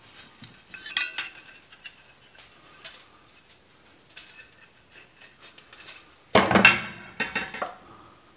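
Thin stainless steel filter plates and mesh screens clinking and scraping against each other and the steel kettle as they are handled and set down, with a louder metallic clatter about two-thirds of the way through.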